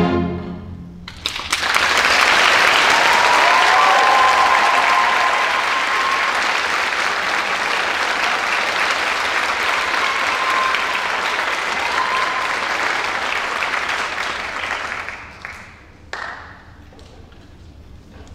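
An orchestra's final held chord dies away in the first second, and audience applause breaks out, with a few cheers from the crowd. The clapping fades out near the end, followed by a single knock.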